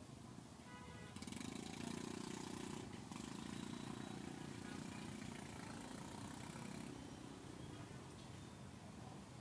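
A vehicle engine running close by in street traffic, coming up about a second in and fading away after about six seconds.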